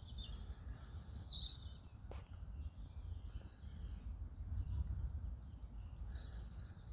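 Outdoor ambience: birds chirping now and then over a low steady rumble, with one faint click about two seconds in.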